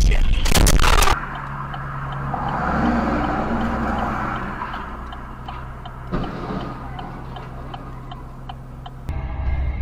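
A loud rumbling, rushing noise cuts off about a second in. Then a car's turn signal ticks about twice a second over a steady engine hum from the waiting car, and a dull thud of a vehicle collision comes about six seconds in.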